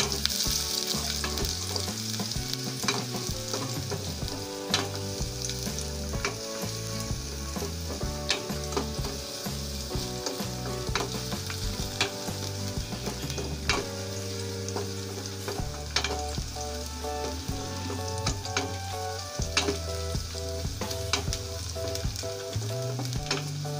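Chopped spring onions sizzling in hot oil in a small metal saucepan, stirred with a wooden spatula that ticks and scrapes against the pan every second or so. The onions are being sautéed until they wilt.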